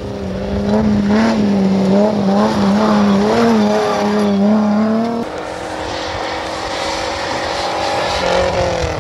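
Rally car engine at high revs passing close, its pitch wavering up and down as the throttle is worked on loose gravel. About five seconds in, the sound cuts abruptly to another rally car's engine farther off, with a steadier note.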